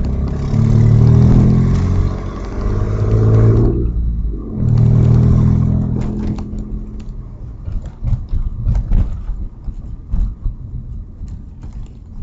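Audi A4 2.8 12-valve V6 accelerating with an exhaust leak just ahead of the catalytic converter, leaving one bank's exhaust open, which gives it a tractor-like sound under acceleration. The revs climb, break off briefly about four seconds in as if for a gear change, climb again, then settle into a lower, uneven rumble with scattered sharp pops.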